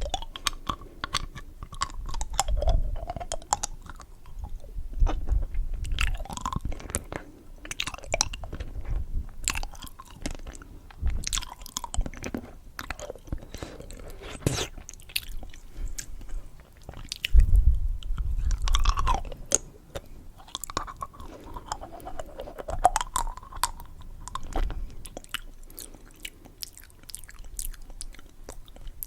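Close-miked chewing and crunching of candy: irregular wet clicks and crackles with dull low thumps, the loudest a little past halfway.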